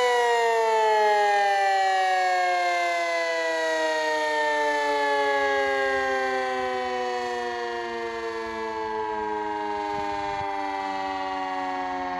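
Red Arrow Model 30 siren winding down: its chord-like wail, held steady until just before, slides slowly and smoothly lower in pitch and grows gradually quieter as the rotor coasts to a stop.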